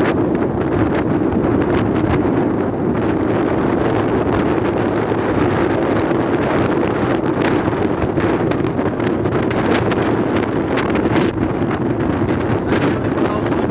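Strong coastal wind buffeting the microphone: a loud, steady rush with frequent gusty crackles.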